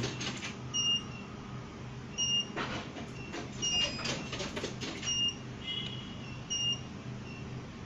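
Short, faint electronic beeps repeating about every second and a half over a steady low hum, with a few brief scraping and rustling noises near the middle as a small screwdriver turns a trimmer potentiometer on the circuit board.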